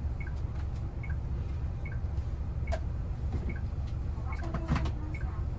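Bus turn-signal indicator ticking in a steady two-note tick-tock, a little more than once a second, over the low steady rumble of the bus. A single sharp knock about halfway through and a brief muffled sound near the end.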